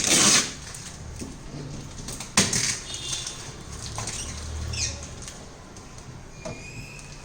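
Rustling and handling of packaging and papers, loudest at the very start, with a sharp knock about two and a half seconds in.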